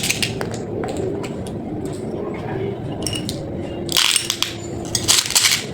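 Candy packaging being handled: scattered small clicks and the crinkle of plastic wrappers, with two louder crinkling bursts about four and five seconds in.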